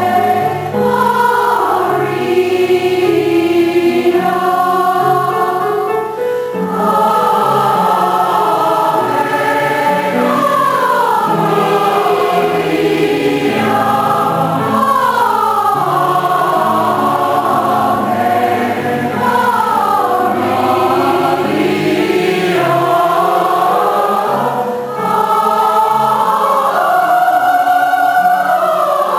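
Large community choir singing in several parts at once, the voice parts moving together in held and gliding notes, with short breaks in the sound about six seconds in and again near the end.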